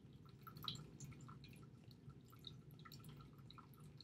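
Near silence with faint scattered ticks, from a stylus writing on a pen tablet.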